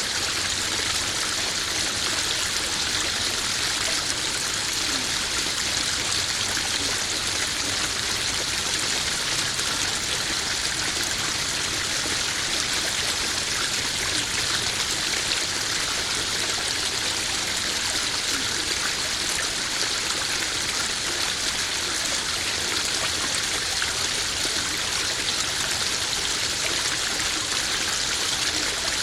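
Small garden waterfall splashing and trickling into a koi pond, a steady, even rush of water.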